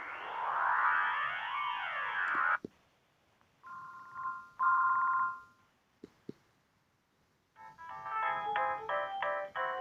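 Siemens C62 mobile phone ringtones played through the phone's small speaker. A sweeping tone that glides up and down repeatedly cuts off after about two and a half seconds with a click. Two short beeps follow, then two clicks, and near the end a fast, many-note electronic melody begins.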